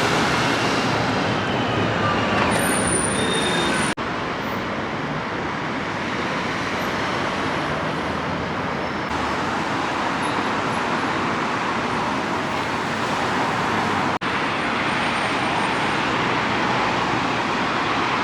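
City street traffic noise: a steady wash of passing road vehicles. The sound drops out suddenly and briefly twice, about four and fourteen seconds in.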